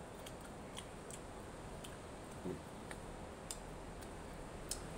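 Mouth sounds of people eating grilled chicken by hand: scattered soft clicks and lip smacks from chewing, irregular and a few a second at most, over a steady low hiss. A short low hum about two and a half seconds in.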